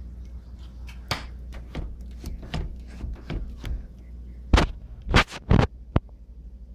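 A string of sharp knocks, clicks and rubs from a phone being handled and moved, the loudest three about four and a half to five and a half seconds in, over a steady low hum.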